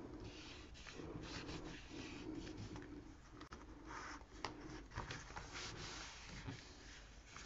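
Faint rubbing of a hand smoothing a taped-down sheet of printer paper flat onto a notebook page, with a few soft paper ticks.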